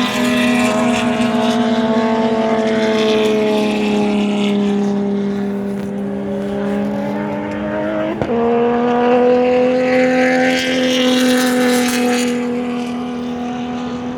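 TC Zonal touring race car engine running hard at a steady high speed. Its note sags slowly for several seconds, breaks briefly about eight seconds in, then holds a slightly higher steady note.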